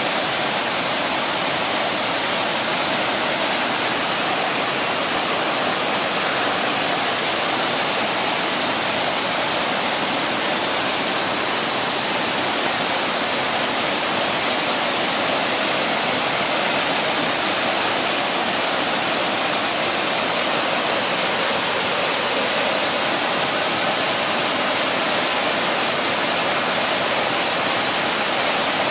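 Steady rush of running water, an even hiss that does not change in level.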